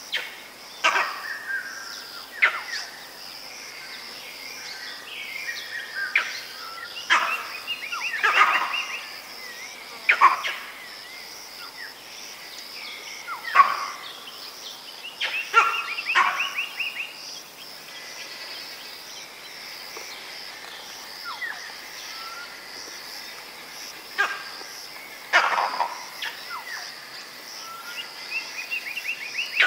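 Vervet monkey giving repeated sharp alarm calls at a leopard, mostly from one monkey, a call every one to three seconds. A steady high-pitched drone runs underneath.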